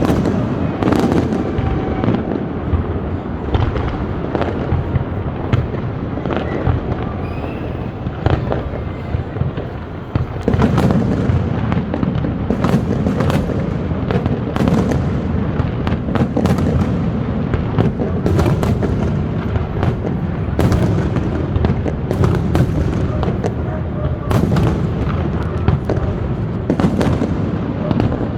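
Fireworks display: aerial shells bursting in a rapid, continuous run of booms and sharp bangs over a low rumble. It grows louder and denser about ten seconds in.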